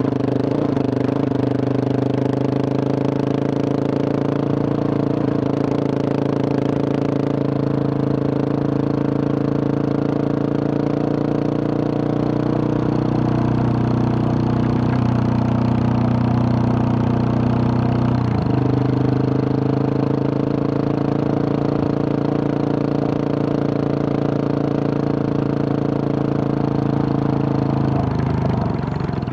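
Husqvarna 701's single-cylinder engine running at a steady cruise through a Wings aftermarket exhaust with a large dB killer. The engine note dips briefly about two-thirds of the way through, and the revs fall near the end.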